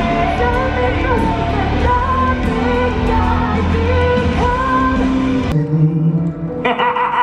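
Rock music with a singing voice over a heavy beat. It breaks off abruptly about five and a half seconds in, and different music follows.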